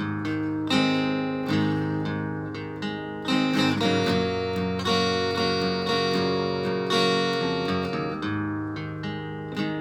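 Acoustic guitar with a Bartolini 3AV soundhole pickup, played through a BOSS DS-1 distortion pedal into an amp: chords strummed and left to ring, about eight strums at uneven spacing.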